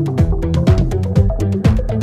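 Background electronic dance music with a steady beat and bass line.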